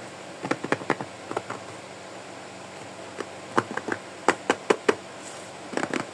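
Fingers tapping and handling a small cardboard box: bunches of short, sharp taps, a cluster about half a second in, a faster run from about three to five seconds in, and a few more near the end.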